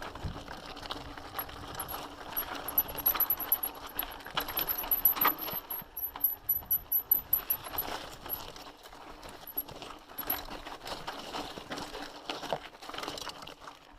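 A mountain bike clattering and rattling over rocky ground, with irregular knocks and metallic jingling that come thickest a few seconds in.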